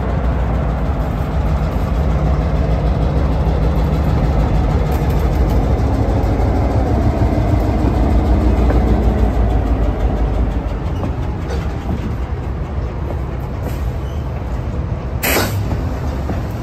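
Norfolk Southern GP38-2 diesel-electric locomotive running as it pulls slowly past, its EMD 16-cylinder two-stroke diesel engine giving a steady low rumble that is loudest about eight to ten seconds in and then falls away, leaving the rolling of the covered hopper cars behind it. A brief sharp sound cuts in about fifteen seconds in.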